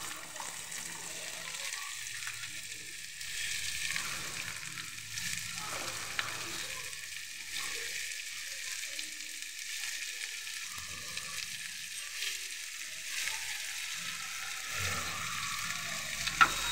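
Chopped onions sizzling steadily as they fry in hot oil with cumin seeds in a non-stick pan, with a few brief clicks from stirring.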